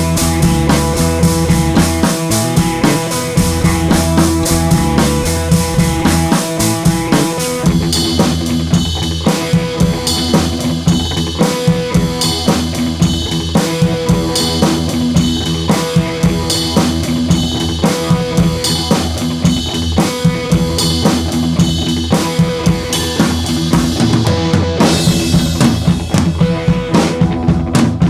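Background music with a drum kit, bass and guitar and a steady beat; the drums get fuller about eight seconds in.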